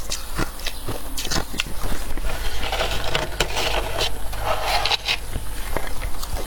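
Soft freezer frost being bitten and chewed close to the microphone: many quick, crisp crunches in irregular succession, thickening into a denser crunching stretch in the middle.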